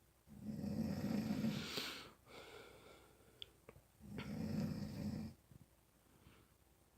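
Loud snoring: two long snores about four seconds apart, with a shorter, quieter breath between them.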